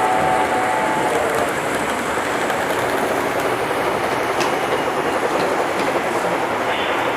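O scale model trains running on three-rail track: a steady rolling rumble and clatter of wheels. A held chord of tones stops about a second in.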